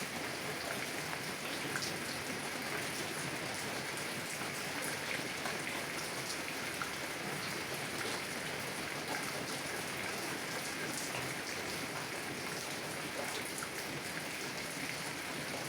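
Heavy rain drumming steadily on a car's roof and windows, heard from inside the car: a constant hiss with many small drop ticks scattered through it.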